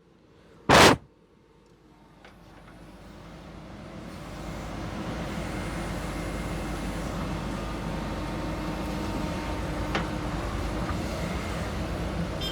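A short loud knock about a second in, then a heavy diesel engine running steadily, fading in from near silence over the next few seconds.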